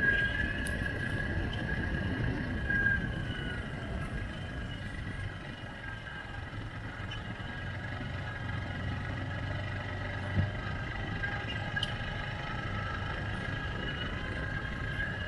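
ATV engine running as the quad rolls along a rough dirt track, with a low rumble under a steady whine. The engine eases off about three seconds in, with the whine dropping slightly in pitch. A single knock comes about ten seconds in.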